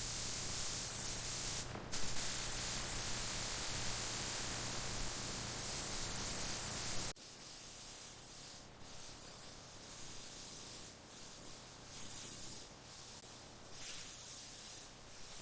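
Paint spray gun hissing steadily as paint is sprayed on, with a brief break about two seconds in. About seven seconds in it cuts to a fainter, uneven hiss.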